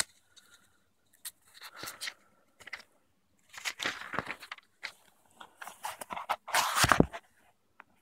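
Handling noise close to the microphone: scattered faint clicks and a few short rustles, the loudest a little before the end.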